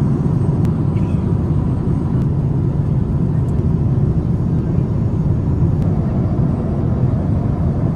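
Steady, low rushing cabin noise inside a Boeing 787 Dreamliner airliner in flight.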